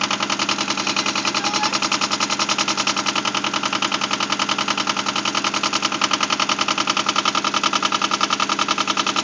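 Small diesel engine of a Yanmar compact tractor running steadily, with an even, rapid chugging beat.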